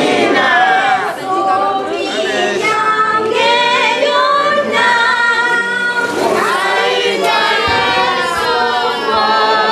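A choir singing a hymn unaccompanied, its voices holding long, wavering notes.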